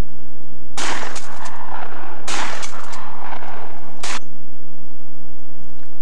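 Three shotgun blasts about a second and a half apart, fired at ducks flying overhead; the first two ring on in echo.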